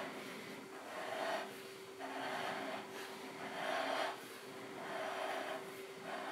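A person breathing audibly close to the microphone, a rush of breath about every second, over a steady faint hum.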